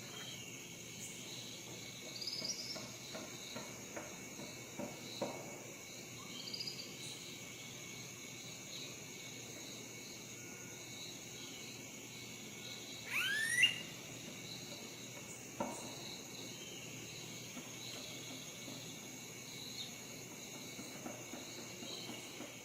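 Steady insect chorus with scattered bird chirps, and one louder call sweeping upward in pitch about thirteen seconds in.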